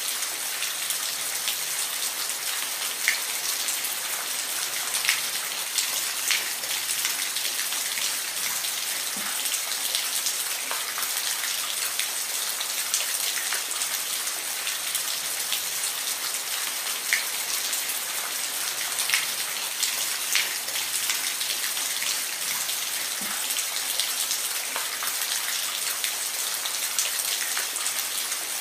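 Steady rain falling, an even hiss with scattered individual drops ticking louder now and then.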